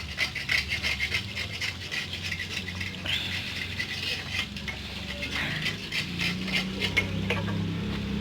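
Water splashing with rapid, irregular clinks of a metal vessel being handled at a spring.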